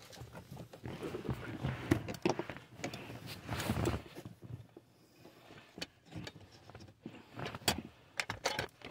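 Hands working the plastic cabin-air-filter cover and trim up under the dashboard: irregular scraping and rubbing of plastic for the first few seconds, then several sharp clicks in the last few seconds as the parts are pushed and clipped into place.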